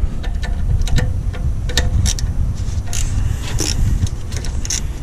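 Wind buffeting the microphone as a steady low rumble, with scattered sharp clicks of a ratchet and socket loosening an air intake hose clamp.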